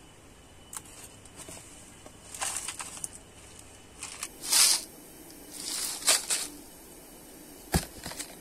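Handling a plastic storage jar of rice: a few clicks as the lid comes off, then rice grains sliding and rattling in short bursts as the jar is tipped, and one sharp knock near the end.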